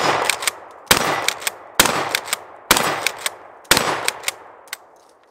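Five 12-gauge pump-action shotgun shots fired about a second apart, each ringing off, with a pair of sharp clacks after each shot as the pump is worked.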